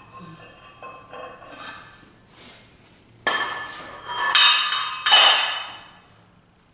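Iron weight plates being loaded onto the bar. There are a few light clinks, then two loud, ringing metal clanks about three and four and a half seconds in.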